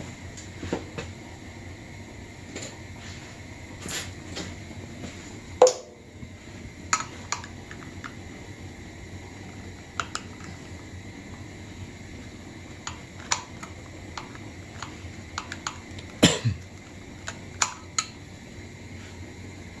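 Irregular small metallic clicks and clinks of a screwdriver and wire terminals being worked on an air compressor's electrical pressure switch, the two loudest about five and a half seconds in and near sixteen seconds. Under them is a steady background hiss.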